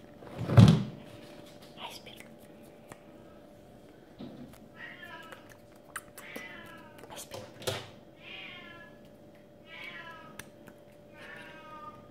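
A loud thump about half a second in, then a kitten meowing repeatedly: about five short, high-pitched meows spaced roughly a second and a half apart, with a few light clicks between them.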